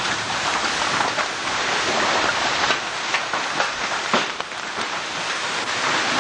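Large hailstones and heavy rain pelting down as a dense, steady rush, with many sharp hailstone impacts cracking through it.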